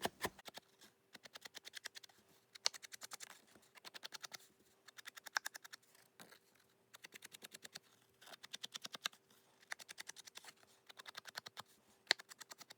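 Sponge dauber tapping ink onto the edges of a cardstock panel: quick runs of light taps, each lasting about a second, with short pauses between.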